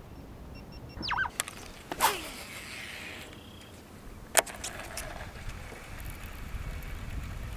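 A cast with a fishing rod: two quick swishes through the air, about a second in and at two seconds. The reel's line then pays out with a hiss for about a second, and a single sharp click follows a little after four seconds.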